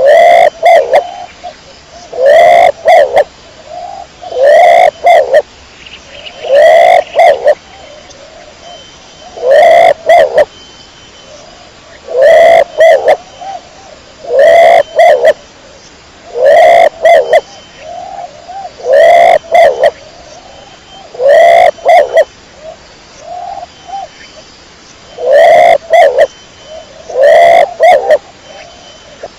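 Domestic pigeon cooing: a short coo phrase repeated about every two seconds, very loud and clipping into distortion.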